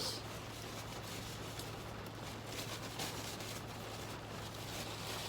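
Steady rain, an even hiss with faint patter.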